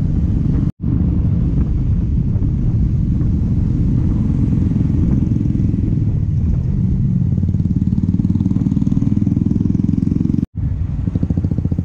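Motorcycle engine running under way, heard from on the bike, a steady low exhaust note. The sound cuts out completely for an instant twice, just under a second in and near the end.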